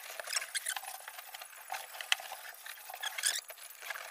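A cloth wiping and scrubbing across the bare, dusty rear package tray of a 1964 Chevrolet Impala: an irregular scratchy swishing with small ticks and a sharp click about two seconds in.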